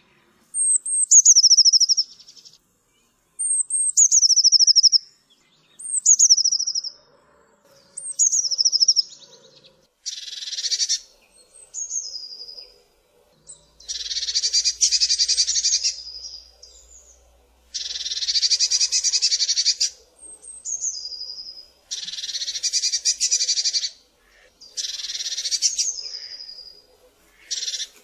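Eurasian blue tit calling: short, high, trilled notes that fall in pitch, alternating with harsh, buzzy churring calls that last about two seconds each and come more often in the second half.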